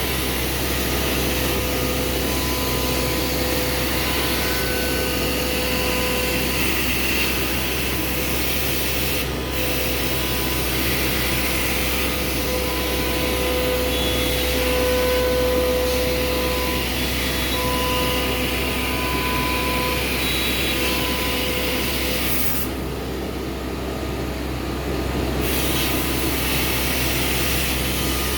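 CNC router milling MDF: a steady rush of spindle and extraction noise, with short steady tones that come and go. The high hiss drops away for a couple of seconds near the end, then returns.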